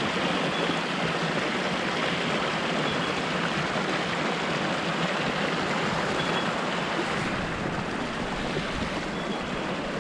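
Steady rushing of a rain-swollen creek's flowing water.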